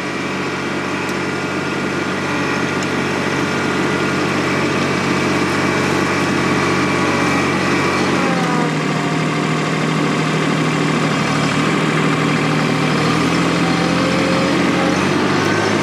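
TYM T264 compact tractor's diesel engine running steadily as it pushes a brush grapple along the ground. The engine note shifts to a new steady pitch about eight seconds in.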